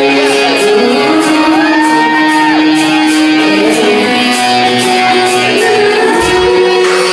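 Loud live band music: guitar over a steady beat with a singing voice, recorded from the audience.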